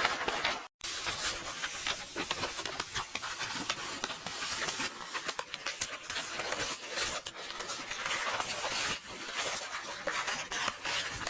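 Paper rustling and crackling, like book pages being turned and handled, with a brief cut to silence just under a second in.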